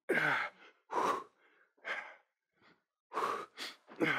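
A person breathing hard from exertion during a bodyweight cardio exercise: a series of about six heavy, audible breaths, some voiced like sighs.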